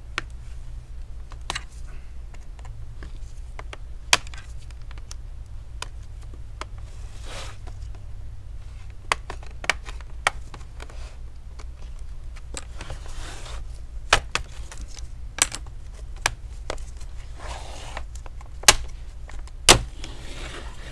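Plastic snap clips of a laptop's bottom cover popping loose one at a time as a plastic pry pick works along the seam: scattered sharp clicks, with short scrapes between them and the loudest snaps near the end as the cover comes free.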